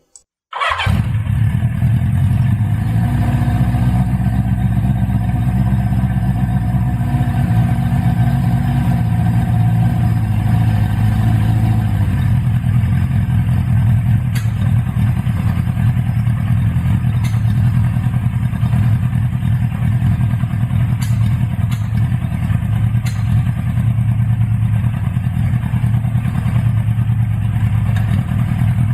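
Honda CB550F's air-cooled inline-four engine running steadily with its carburettors freshly adjusted. The sound cuts in abruptly about half a second in; the engine speed wavers slightly at first, then settles.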